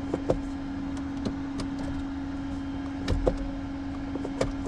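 A few sharp clicks and knocks over a steady hum as a BMW fails to start: its battery is down to about 10.5 volts.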